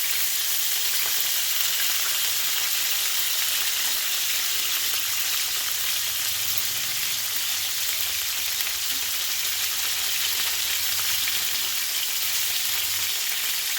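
Marinated chicken wings shallow-frying in hot oil: a steady sizzle with fine crackling pops of spattering oil.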